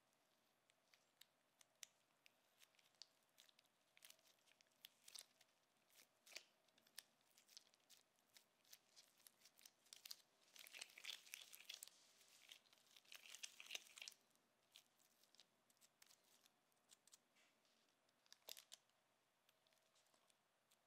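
Faint sticky squishes and crinkles of disposable gloves working soft chocolate chip cookie dough, pressing and folding it around a filling, with a busier stretch of crackling in the middle.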